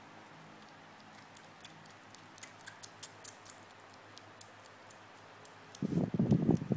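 Young black kitten eating mushed food from a person's palm: small, irregular wet licking and smacking clicks. Near the end a much louder, rough low noise starts and carries on.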